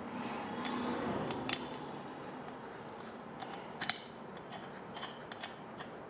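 Strain-relief cord connector being twisted tight around a power cord in a metal single-gang electrical box: rubbing and scraping for about the first second and a half, then a few sharp clicks.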